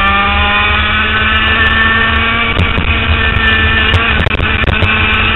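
HPV 100 kart engine, a 100cc two-stroke, running under the driver: its pitch rises slowly over the first couple of seconds and then holds steady, with a few short knocks or clicks about halfway through.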